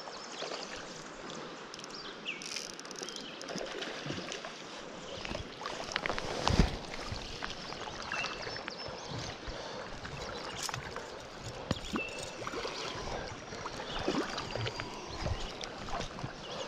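River water running and splashing, with scattered short splashes and knocks and one louder splash about six and a half seconds in.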